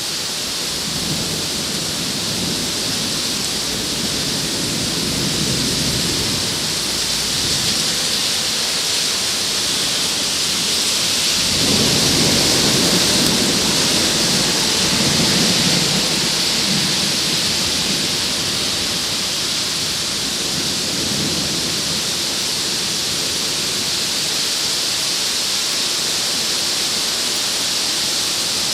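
Heavy rain pouring steadily, drumming on the plastic bag covering the camera. A deep rumble swells suddenly about eleven seconds in and fades over the next several seconds.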